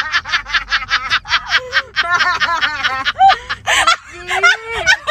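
A person laughing in a fast, high-pitched run of short even 'ha' pulses, with a sharp gasp for breath about three and a half seconds in.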